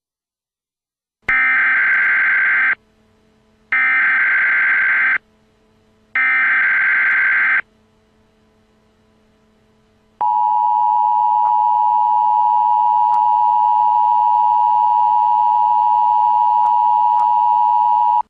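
Emergency Alert System signalling: three bursts of the SAME digital data header, each a harsh buzzing warble about a second and a half long with short pauses between, then, about ten seconds in, the steady two-tone EAS attention signal.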